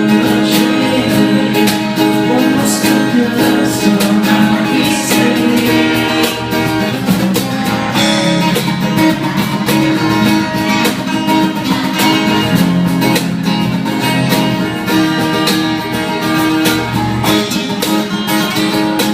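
Acoustic guitar playing an instrumental passage, strummed and picked, with no sung lines.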